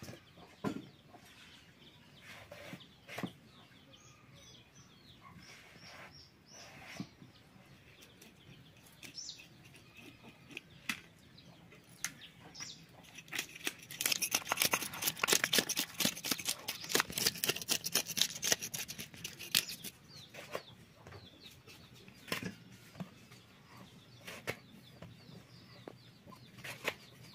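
Scales being scraped off a whole rohu fish: a dense run of rapid scraping clicks, the loudest part, from about halfway in for several seconds. Before and after it come occasional single sharp cuts as vegetables are sliced on a boti, a curved floor-mounted blade.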